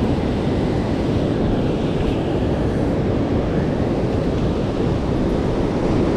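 Steady rushing noise of river water, heaviest in the low end, with wind buffeting the microphone.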